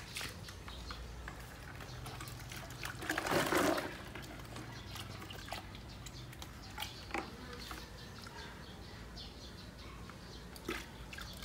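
Water sloshing and dripping in a plastic bucket as a chicken is washed by hand, with small splashes throughout and a louder burst of splashing about three and a half seconds in.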